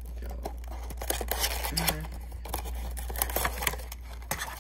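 A cardboard model box being opened and its clear plastic packaging pulled out and handled: a busy run of scrapes, rustles and sharp crinkling clicks over a steady low hum.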